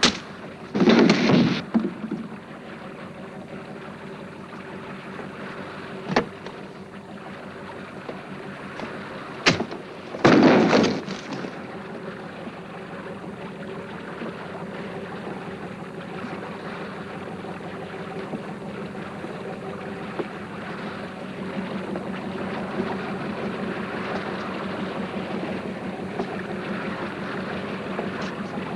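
Steady drone of a boat's engine with the wash of the sea, broken by two loud, short rushing bursts, about a second in and again about ten seconds in, and a couple of sharp knocks between them.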